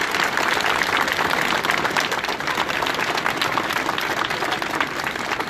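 A large crowd applauding: dense, steady clapping that thins slightly toward the end.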